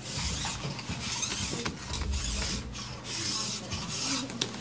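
Steel ski edge being sharpened with a hand file in an edge guide: repeated long scraping strokes along the edge, about one a second, working the dull part of the edge sharp.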